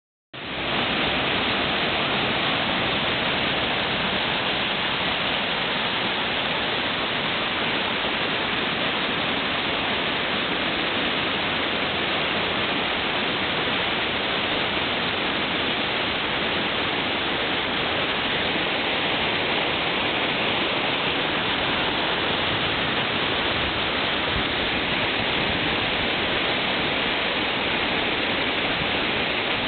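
Loud, steady rush of a whitewater rapid, churning river water with no breaks or pauses.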